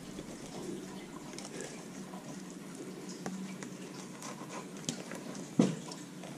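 Fillet knife slicing along a crappie's backbone on a plastic cutting board: faint wet scraping with small clicks, and one sharper knock about five and a half seconds in.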